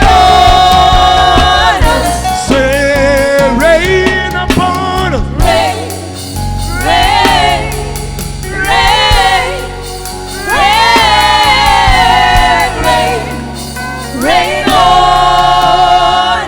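Gospel worship music: voices sing long held notes with vibrato in several phrases, over a low instrumental backing.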